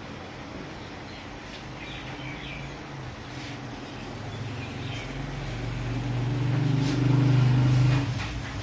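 A low motor hum builds up over the second half, is loudest just before the end, then drops away. A few faint metal clicks come with it.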